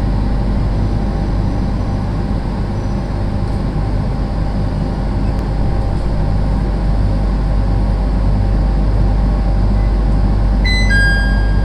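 Inside a JR East 701 series electric train running on the line: a steady rumble and hum of the car in motion. Near the end a short two-note electronic chime sounds, the signal that an on-board announcement follows.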